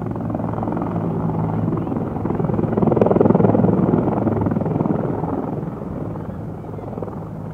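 Military helicopter lifting off: a steady engine hum under a rapid rotor beat that swells to its loudest about three seconds in, then eases as it moves away.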